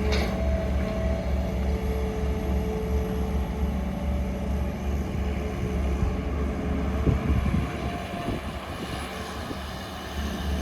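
Heavy machinery engine running with a steady low rumble, easing off briefly about eight seconds in.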